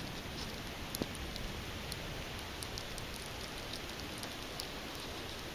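Steady hiss of falling snow and ice in a winter storm, with a few faint ticks.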